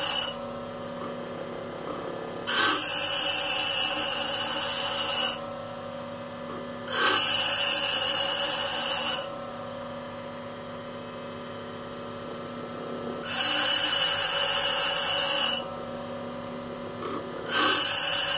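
Vevor 8-inch variable-speed bench grinder running steadily, with a drill bit pressed against the spinning wheel four times for two to three seconds each. Each pass gives a loud, high grinding hiss over the steady motor hum between passes, as the bit's cutting edge is ground to give it a relief angle.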